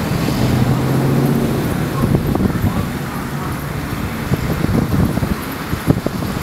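Steady road traffic noise, with a vehicle engine's low hum that fades out about two seconds in.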